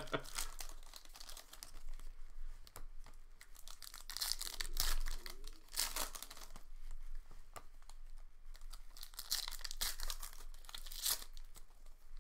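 Panini Contenders football card pack wrappers being torn open and crinkled by hand, in a run of separate, irregular rips and rustles.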